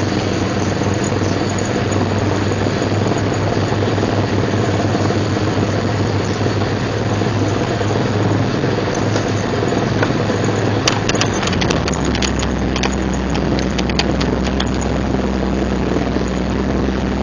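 1999 Jeep Cherokee XJ driving, with a continuous rough noise over the engine and drivetrain. The engine note drops to a lower pitch about two-thirds of the way through, and some clicks and rattles follow. The video is about the grinding this Jeep's front end makes in four-wheel drive, which new axle U-joints and a rebuilt Dana 30 front differential have not cured.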